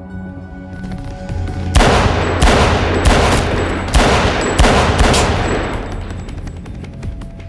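Semi-automatic pistol fired six times in quick succession, about two-thirds of a second apart, each shot trailing off in a long echo, over a film score.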